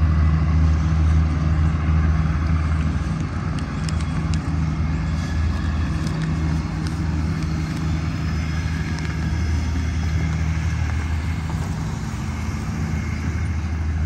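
A steady low engine rumble, running evenly without change in pitch, with faint street noise above it.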